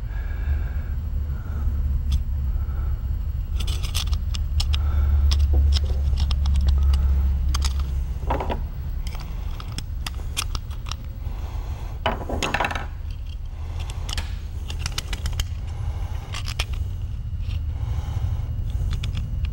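Small steel shotgun parts clicking and scraping against each other as an Anson fore-end rod and spring are fitted into the fore-end iron, over a steady low hum.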